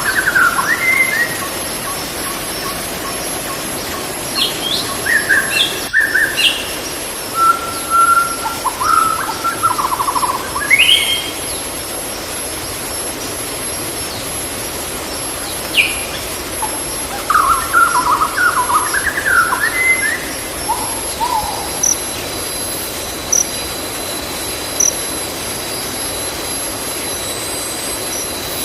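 Steady rush of a flowing forest stream, with wild birds chirping and calling in scattered bursts over it and a thin, steady high-pitched tone behind.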